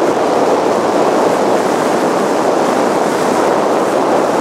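Truck driving over a snow-covered frozen lake, heard from inside the cab: a steady rumble of tyres and engine.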